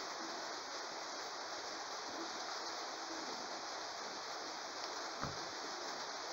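Steady background hiss, with a single soft knock about five seconds in as a hot glue gun is set down on a plastic cutting mat.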